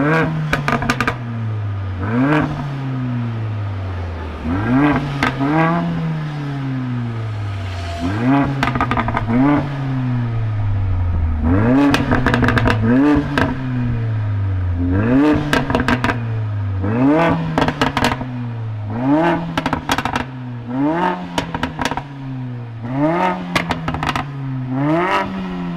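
Mercedes-AMG A45's turbocharged 2.0-litre four-cylinder being blipped over and over, a short rev every second or two that rises quickly and falls back slowly. Each blip brings a run of crackles and pops from the exhaust.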